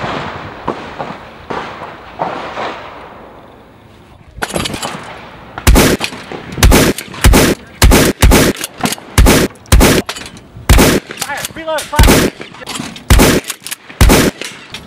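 12-gauge shotgun fired in a rapid string of loud, sharp shots, about two a second, starting some six seconds in after a few quieter seconds.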